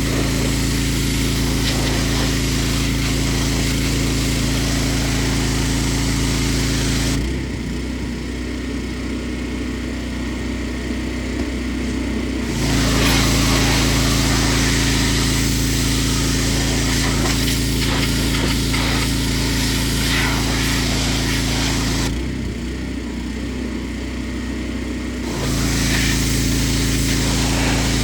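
Engine-driven pressure washer running steadily under the hiss of the spray. Twice, for a few seconds each time, the spray stops and the level dips while the engine keeps running, once about a quarter of the way in and again near the end.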